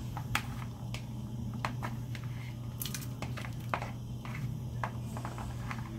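Slotted spoon scooping cooked rice out of a plastic bowl into a pot of soup: scattered soft clicks and scrapes of the spoon against the bowl and the squish of rice dropping in, over a steady low hum.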